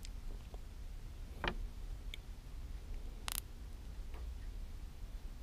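A few small clicks and ticks from handling the plastic tubes of JB Weld two-part epoxy as their caps are twisted off and the tubes squeezed. The two sharpest clicks come about a second and a half and three seconds in, over a low steady background rumble.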